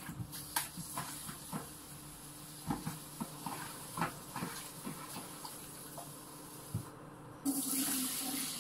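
Washing up at a kitchen sink: dishes and utensils clinking and knocking in short bursts, then the tap runs again about seven and a half seconds in.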